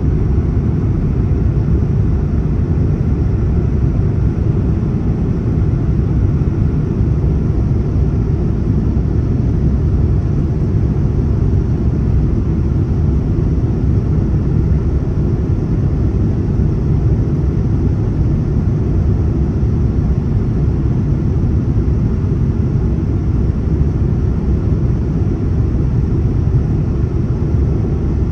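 Steady low rumble of a Boeing 787-9 airliner, the even engine and airflow noise heard inside the cabin.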